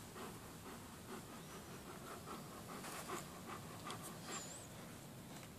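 German Shepherd Dog panting with its tongue out: soft, quick breaths at about three to four a second.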